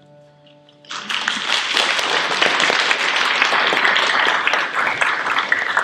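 The last acoustic guitar chord dies away, then an audience breaks into applause about a second in, with steady clapping that goes on to the end.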